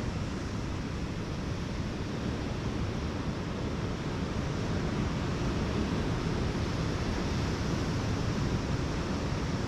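Ocean surf washing steadily on a beach, with wind on the microphone; it swells slightly about halfway through.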